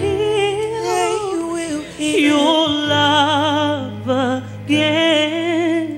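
A woman singing a slow gospel song solo, holding long notes with wide vibrato, over sustained keyboard chords.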